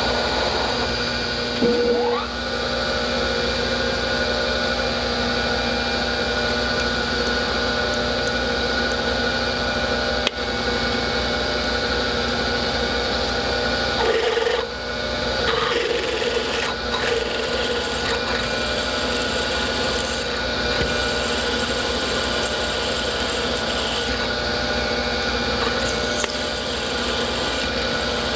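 Bridgeport milling machine spindle running with a steady hum while drilling into a metal bar, first with a centre drill and then a twist drill. There is a short rising whine about two seconds in.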